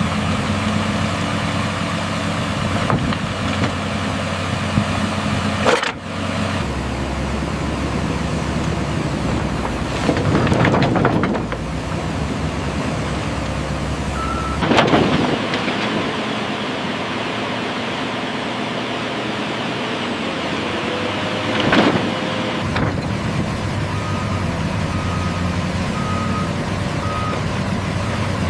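Heavy diesel excavator running steadily at work, with three brief louder surges of noise. Near the end a reversing alarm beeps about once a second.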